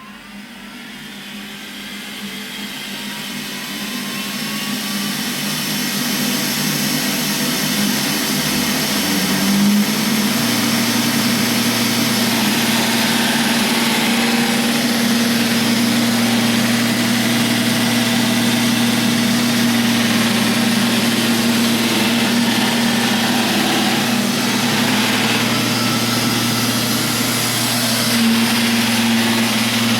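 Robot vacuum cleaner running: its motor and suction fan hum with a rushing hiss that grows louder over the first several seconds, then runs steadily, with a small step up in pitch about ten seconds in.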